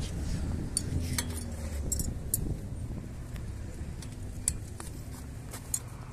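Light, irregular metallic clinks and taps of hand tools on BMX hardware while the rear wheel's axle nuts and chain tension are being adjusted. Under them runs a steady low rumble.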